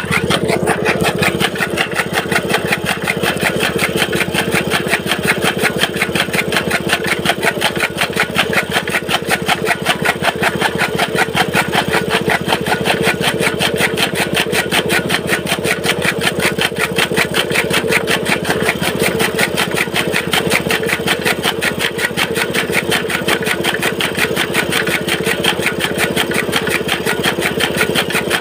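Small petrol engine running steadily under load, belt-driving a toka flywheel chaff cutter that chops green fodder as it is fed in. It makes a continuous fast, even pulsing.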